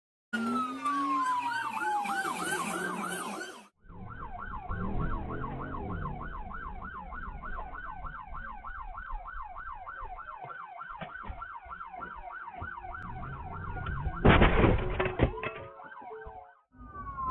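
Police car siren, first one falling wail and then a rapid yelp of about five or six sweeps a second, with a vehicle engine rumbling under it. Near the end the siren is drowned by a loud burst lasting about a second.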